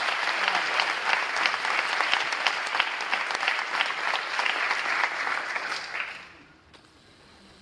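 Audience applause in a theatre hall, a dense patter of many hands clapping, fading away about six seconds in to the hush of the hall.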